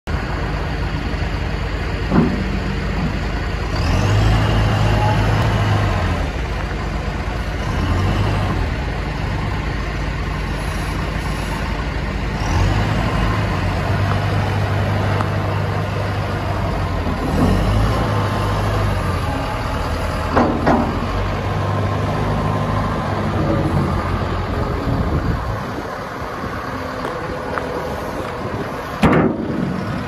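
Diesel engine of a John Deere 310K EP backhoe loader running, growing louder in several stretches as the loader arm raises the bucket and the machine works. A few sharp knocks are heard now and then.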